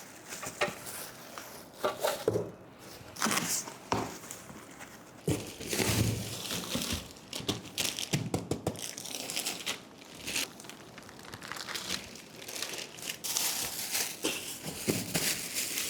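Plastic packaging crinkling and tearing in irregular handfuls, with a few knocks, as gaming-chair parts are unwrapped from their carton.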